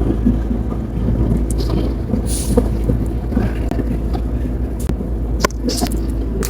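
Slime being handled, with scattered sharp clicks and crackles over a steady low rumble.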